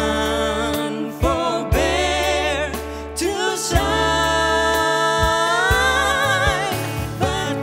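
Gospel song: a singer with strong vibrato over a band with bass and drums. About three and a half seconds in, the singer holds one long note that steps up in pitch near the six-second mark.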